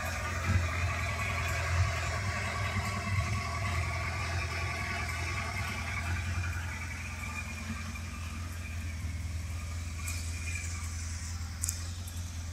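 Kawasaki GPZ1100F's inline-four engine, fitted with Keihin CR carburettors, running steadily with a few short louder peaks in the first few seconds, then settling a little lower.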